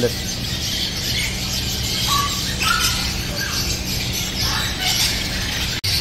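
Many small cage birds chirping and squeaking together in a crowded aviary, short high notes overlapping without pause. The sound breaks off for an instant near the end.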